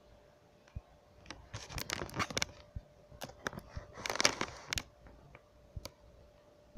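Rustling and crinkling in two bursts a couple of seconds apart, with scattered light clicks and soft knocks, over a faint steady hum.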